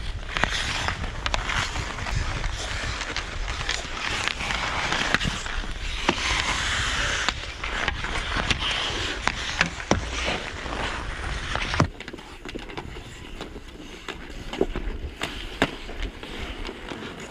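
Ice hockey skates scraping and carving on the ice, with sharp clacks of sticks and puck scattered through. The loudest crack comes about twelve seconds in, after which the sound turns quieter and duller.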